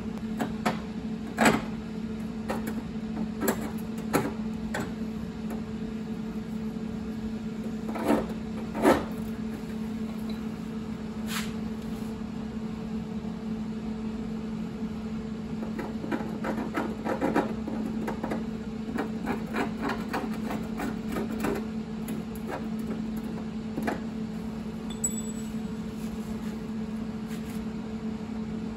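Scattered light clicks and knocks of metal being handled at a rusted steel wheel arch, over a steady machine hum; a run of quick light ticks comes about halfway through.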